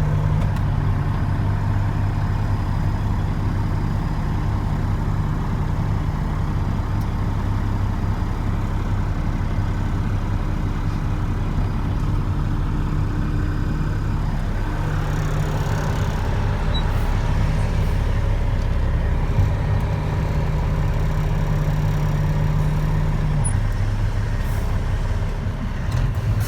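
Dump truck's diesel engine running steadily, its low note shifting a few times. A sharp knock comes at the very end.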